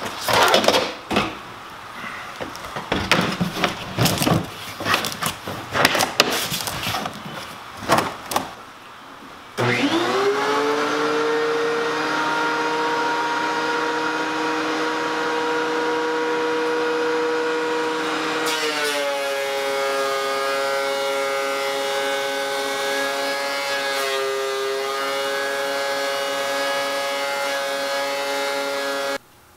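Plastic tote lid and a wood block handled with knocks and rattles, then a shop vacuum switches on about nine seconds in and runs steadily, drawing through a homemade chip-separator bin. Its whine steps up in pitch about halfway through, and it cuts off just before the end.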